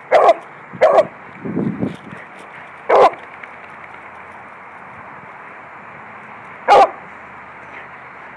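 A beagle barking in short, loud single barks, four in all: two about a second apart near the start, one about three seconds in and a last one near seven seconds. A lower, rougher sound comes between the second and third barks.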